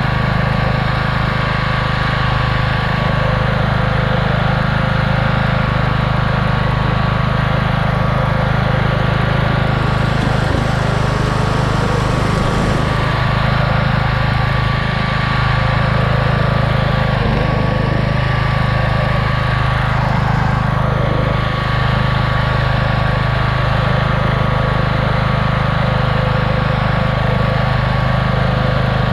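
Race-modified riding lawnmower engine running steadily, with a steady high whine over the engine note and a few brief shifts in its sound partway through.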